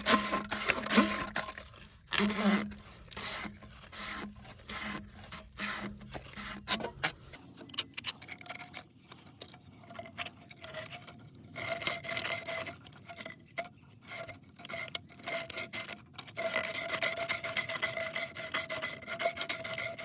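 Repeated rubbing strokes on PVC pipe, uneven in pace, as its spray-paint coating is scrubbed off to bare plastic so the cement will bond.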